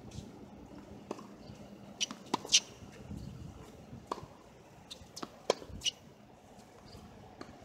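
Tennis rally on a hard court: sharp pops of racquets striking the ball and the ball bouncing, several over a few seconds, the loudest about two and a half seconds in.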